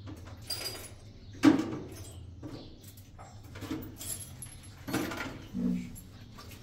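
Handling clatter: a sharp knock about a second and a half in, then a few softer knocks and rustles, with a short low squeak near the end.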